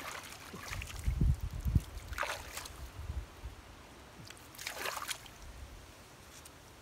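Wet mud and water squelching and splashing underfoot and under hand, with a few low thumps in the second second and two short wet splashes later on.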